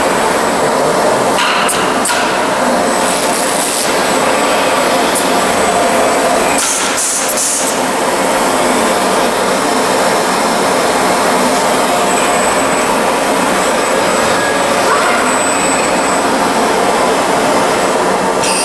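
Robot-held orbital sander running steadily with a loud, even hiss, with a few short bursts of sharper hissing air in the first half.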